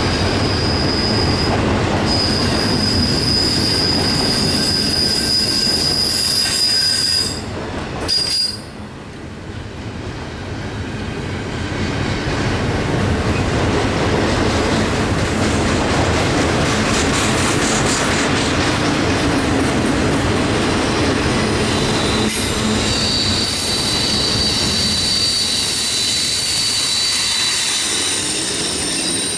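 Union Pacific train's cars rolling past steadily, with a high, steady wheel-flange squeal for the first several seconds and again near the end. The loudness dips briefly about eight seconds in.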